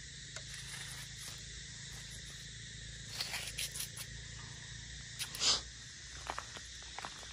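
A steady high outdoor hiss. A cluster of short rustles and scrapes comes about three to four seconds in, and a louder brief swish about five and a half seconds in, as a long telescopic fishing pole is lifted and swung out.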